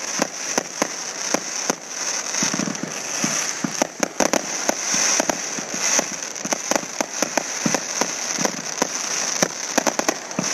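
Consumer firework cakes firing: sharp pops of shots launching and bursting in quick, irregular succession, over the dense fizz of crackling stars.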